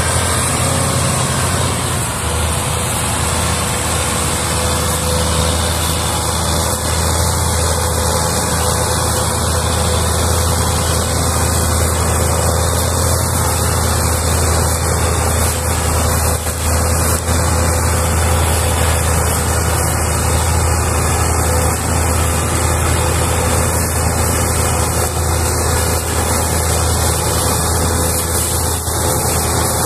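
Diesel tractor engines running steadily under heavy load: one tractor pulls a trolley piled with sugarcane and a second pushes it from behind. A continuous low engine drone with no clear revving or stops.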